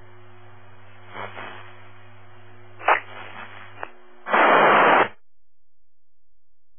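Scanner radio on a transit dispatch channel with no voice: steady radio hiss and hum, a short crackle about a second in and a sharp click near three seconds. Then comes a loud burst of static lasting under a second, after which the channel cuts off.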